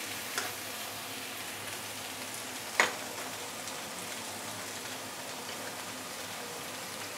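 Chopped Chinese cabbage frying in oil in a wok, a steady faint sizzle. There is a small tick about half a second in and one sharp click just under three seconds in.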